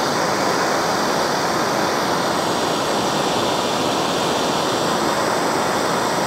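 Handheld gas torch burning with a steady hiss as its flame heats a copper washer red hot to re-anneal it.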